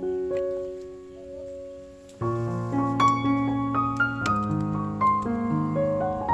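Instrumental background music: a held chord fades away over the first two seconds, then a melody of sustained notes resumes over a low bass line.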